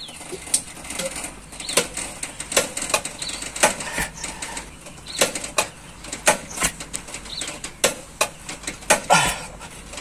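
A small 2-ton scissor jack being cranked by hand, its screw and crank handle giving irregular metallic clicks and knocks about twice a second. The jack is straining under the vehicle's weight from too low a starting height and cannot lift it.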